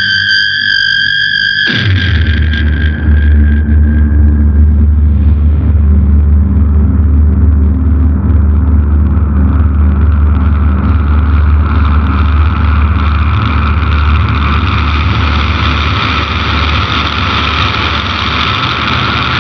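SG electric guitar through an Electro-Harmonix Big Muff fuzz, MXR Analog Delay and reverb: a sustained high fuzzed note cuts off about two seconds in and gives way to a loud, low, distorted droning note held for the rest, with high tones coming back near the end.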